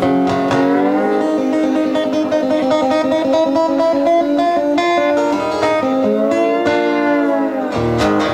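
Blues guitar played with a slide: long held notes that glide smoothly between pitches.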